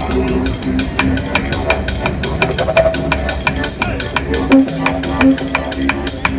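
Didgeridoo droning with a low continuous pulse and shifting overtones, played with a quick, steady percussion beat of sharp strokes.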